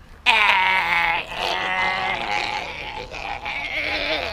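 A long, high, bleat-like cry that starts suddenly about a quarter second in and wavers in pitch, with a quaver near the end.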